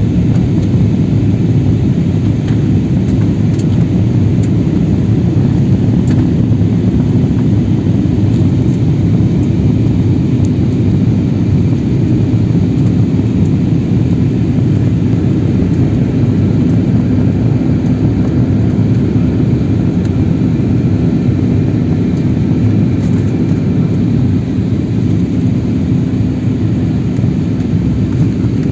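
Jet airliner cabin noise in flight, heard from a window seat: a loud, steady low rumble of engines and airflow with a faint even hum in it.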